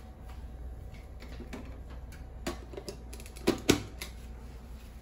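Scattered light clicks and knocks of laundry products and the washing machine being handled, with two sharper knocks close together about three and a half seconds in, over a steady low hum.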